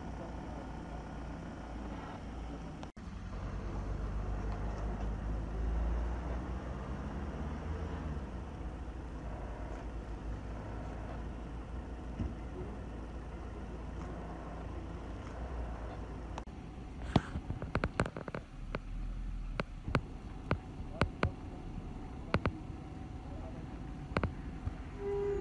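Low steady rumble of motor vehicle engines. It swells about four to six seconds in, with a gliding pitch like an engine revving. From about seventeen seconds on comes a run of sharp clicks and knocks.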